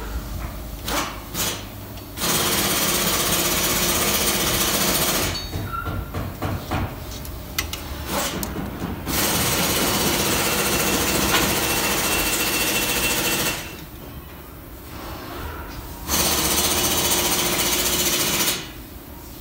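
A power tool runs loudly in three bursts of a few seconds each. Between the bursts come quieter scattered metal clicks and clinks of handwork.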